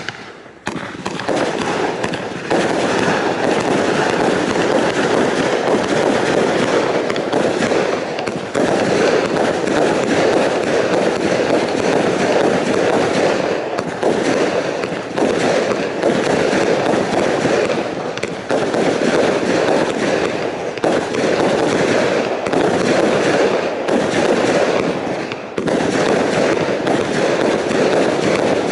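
Kimbolton Fanfare Royale 80-shot firework cake firing: a dense, continuous barrage of launches and bursting shells, with a few brief lulls every several seconds.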